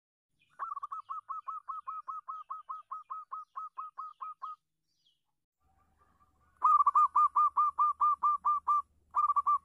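Local-strain zebra dove (perkutut lokal) calling: a quick run of short repeated notes, about five a second, for about four seconds, then after a pause a second, much louder run of the same notes, and a brief further burst near the end.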